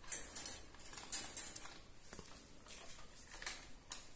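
Short scratchy rustles and light clicks from a wire cat cage and the cats moving inside it, densest in the first second and a half, with a sharper click a little after two seconds.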